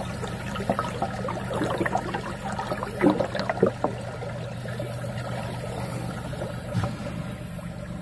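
Creek water sloshing and trickling as a hand reaches in and lifts an arrowhead off the gravel bed, with scattered splashes and knocks that are loudest about three seconds in.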